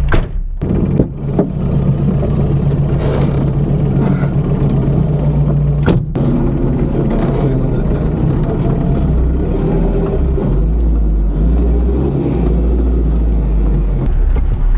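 Toyota Land Cruiser off-road race car's engine running steadily while driving, heard from inside the cabin. The sound drops out briefly about half a second in and again around six seconds in.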